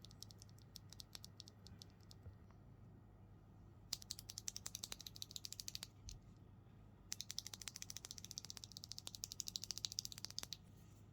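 Keystrokes on a mechanical keyboard with TTC Old School linear switches: scattered single key presses, then two fast runs of rapid typing, about four and seven seconds in.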